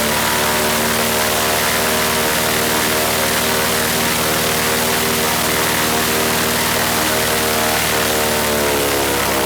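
Franklin 165 air-cooled flat-six aircraft engine running steadily at a constant speed during a test run after repair of a blown cylinder, which the owner says sounds much better.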